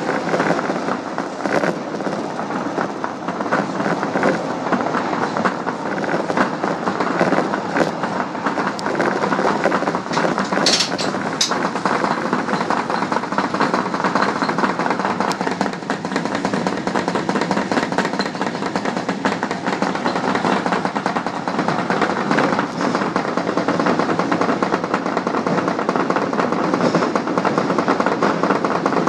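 Osaka Municipal Subway Tanimachi Line train running between stations: a steady noise of wheels on rails and running gear, with faint clicks over rail joints and a brief high-pitched sound about eleven seconds in.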